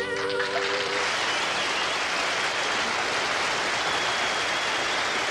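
Audience applauding steadily, taking over as the song's last held note ends about a second in.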